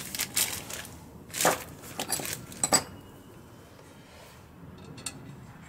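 Small metal engine parts and hand tools clinking and knocking as they are handled on the workbench. There are several sharp clinks in the first three seconds, the loudest just before the three-second mark, then only a few faint ticks.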